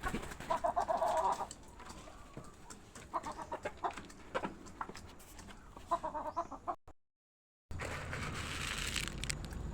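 Chickens clucking, with a longer call about half a second in and another about six seconds in. The sound cuts out near seven seconds and gives way to a steady low rumble and hiss.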